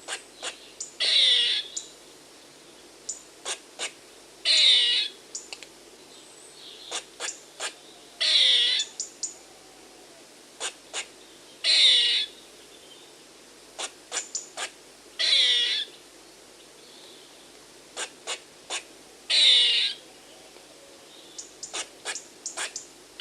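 Squirrel alarm calling: a few short, sharp chips, then a louder call that slides down in pitch. The sequence repeats about every three and a half seconds, six times in all.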